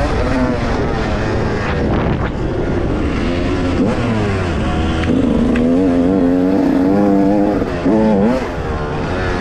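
Dirt bike engine running under riding, its pitch rising and falling with the throttle, with a few quick drops and rises near the end.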